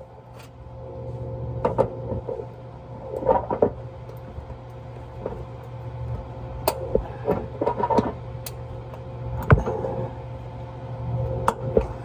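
Scattered metallic clicks and taps from a hand tool worked on the water-line fitting at the back of a commercial coffee maker, over a steady low hum.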